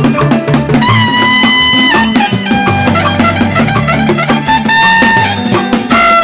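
A live band playing during a sound check: long held lead notes over a moving bass line and drums.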